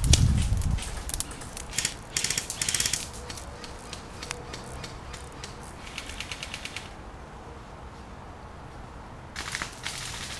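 Airsoft electric rifles firing full-auto in several short bursts of rapid, evenly spaced clicks, with a quieter spell of about two seconds before a last burst near the end. A low thump comes at the very start.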